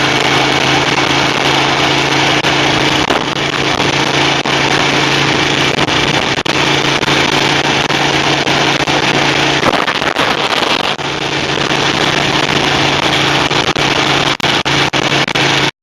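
Suzuki TL1000S V-twin engine running at a steady, unchanging speed while riding, under a loud steady rush of wind noise; the sound cuts off suddenly near the end.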